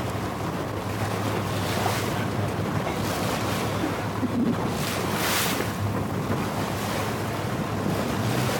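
Small motorboat under way, its engine giving a steady low hum beneath the rush of water along the hull. Wind buffets the microphone, with brief louder gusts, the strongest about five seconds in.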